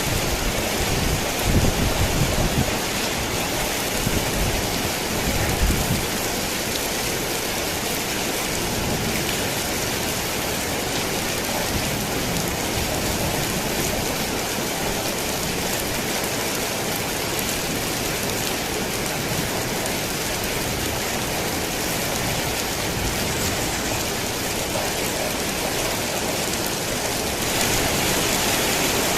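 Steady rain falling on a tin roof, with thunder rumbling low in the first few seconds and again briefly about six seconds in. The rain grows slightly louder near the end.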